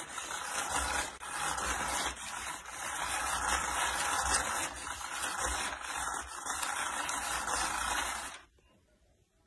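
Small electric motor running with a steady rattling whir and low rumble, which cuts off abruptly about eight and a half seconds in.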